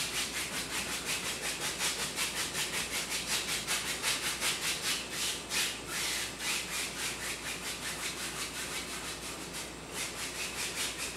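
Paintbrush scrubbing acrylic paint onto a stretched canvas in quick, even back-and-forth strokes, about four a second, a dry rubbing hiss.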